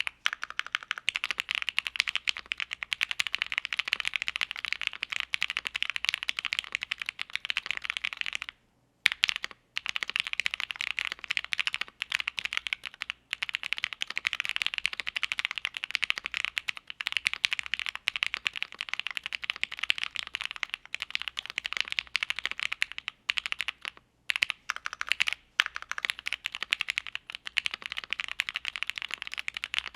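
Typing on a keyboard with Gateron Box Ink Black linear switches, in a hot-swap board with a polycarbonate plate and GMK keycaps: a fast, continuous run of key clacks, with short pauses about 9 seconds and 24 seconds in.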